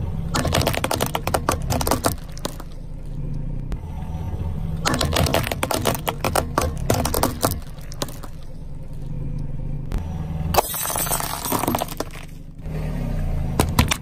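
Car tyre rolling over a pile of paintballs, the balls cracking and popping in two rapid clusters of sharp snaps over a low engine rumble. Later comes a longer, denser burst of crushing noise.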